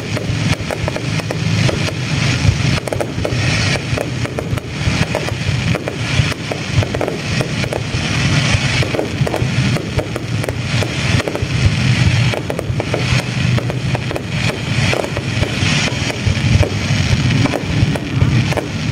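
Aerial fireworks display: a loud, continuous run of shell bursts, bangs and crackling, one overlapping the next.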